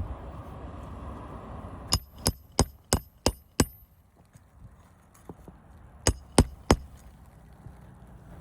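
Hammer driving roofing nails into shingles: six quick strikes about two seconds in, then three more near the end.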